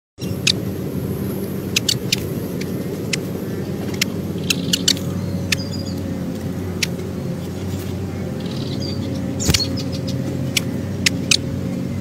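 A steady low engine hum, with many short sharp clicks scattered through it.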